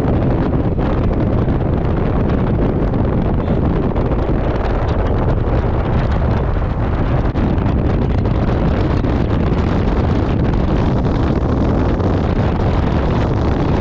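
Steady, loud wind noise on the microphone over the road noise of a moving vehicle.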